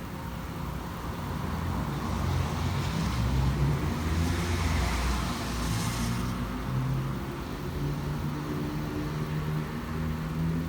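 Ocean waves washing: a hiss of surf swells up over a few seconds, peaks around the middle, then recedes.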